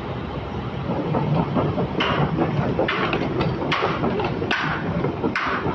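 Kobelco crawler excavator travelling on its steel tracks: the diesel engine runs under a rough clatter of the track chain, with a harsh rasping burst about once a second.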